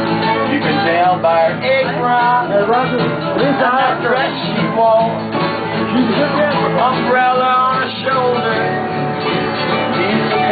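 Country-bluegrass acoustic band playing an instrumental break, guitar accompaniment under a wavering lead melody line.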